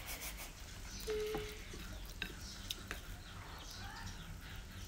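Chopsticks clicking against ceramic bowls while noodles are stirred and lifted, with a few sharp clicks in the middle, over a low steady background hum. A short held tone sounds about a second in.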